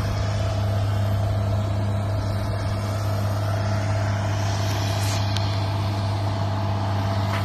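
4x4's engine running steadily, a constant low drone that holds the same pitch throughout.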